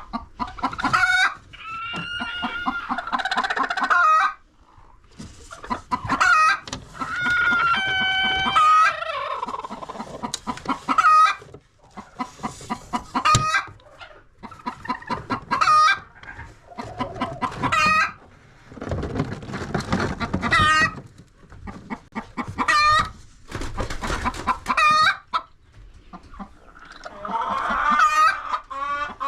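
Chickens clucking and calling, many short calls in quick succession. There is a longer drawn-out call around eight seconds in, and a stretch of noisier sound around twenty seconds in.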